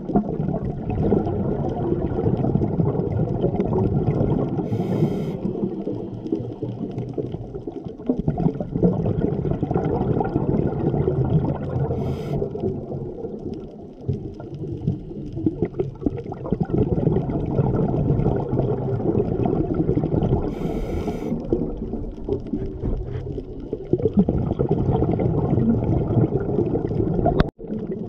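Scuba diver's regulator heard underwater through a GoPro dive housing: long muffled bubbling exhalations with short hisses of inhalation between them, three times. The sound cuts out for an instant near the end.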